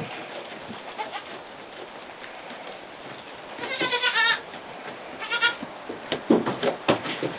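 A baby goat bleating twice: a quavering call about halfway through and a shorter one a second later. Scattered light knocks follow near the end.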